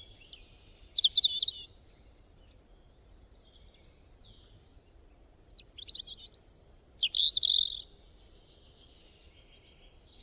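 Birds singing: quick, high chirping phrases, one cluster about a second in and another, louder one around six to eight seconds, over a faint steady background hum.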